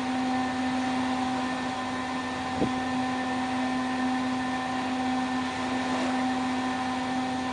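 Steady hum of ship's deck machinery: a low drone with a higher whine held level, and one faint knock about two and a half seconds in.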